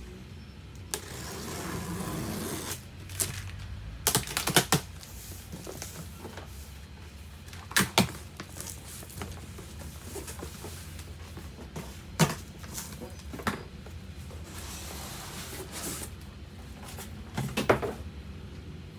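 Hard plastic parts of a kids' ride-on car being handled and fitted during assembly: scattered sharp clicks and knocks, some in quick clusters, with two short stretches of rustling.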